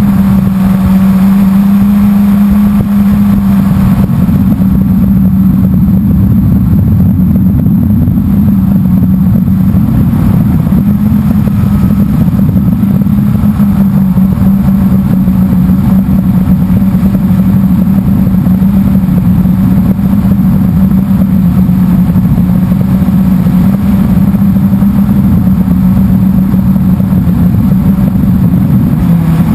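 Blade 350 QX quadcopter's four brushless motors and propellers droning steadily in flight, close to the camera's microphone. The pitch of the hum wavers slightly as the rotor speed changes.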